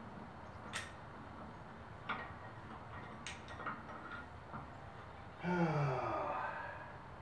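A handful of light, sharp metal clicks and taps from a wrench on the tractor's steel linkage, spread over the first four and a half seconds. Then, about five and a half seconds in, a man's long groan of effort, falling in pitch.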